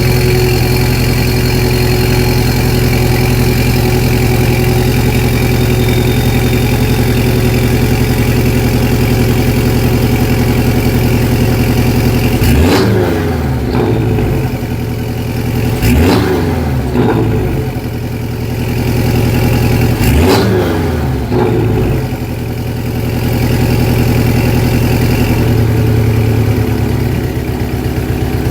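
Porsche 718 Cayman S turbocharged flat-four idling through a catless race downpipe and sport exhaust with the exhaust valve open, in Sport mode. It is blipped three times, about 13, 16 and 20 seconds in, each rev dropping quickly back to idle, and the idle settles lower near the end.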